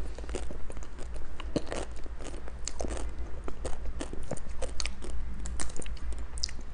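Biting and chewing of chocolate-coated ice cream bars: the chocolate shell crunches and crackles in many quick, irregular snaps.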